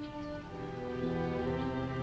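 Orchestral background music with strings, sustained notes that swell gently.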